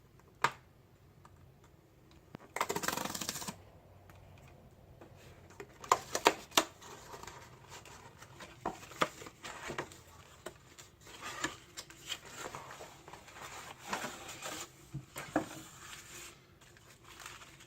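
A cardboard self-heating meal box being opened and its contents handled. There is a sharp click near the start and a second-long tearing sound about three seconds in, then scattered clicks, taps and rustling of cardboard and packaging.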